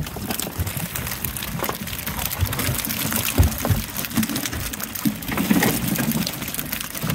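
Water splashing and dripping off a wire catfish net as it is hauled and handled in a boat, with scattered clicks and a few dull knocks, the loudest about halfway through.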